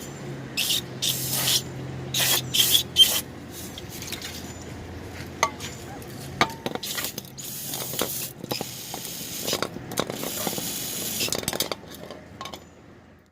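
Aerosol can of brake cleaner spraying in hissing bursts: a quick string of short squirts in the first few seconds, then two longer sprays of a second or more each, washing oil residue off around the drain plug.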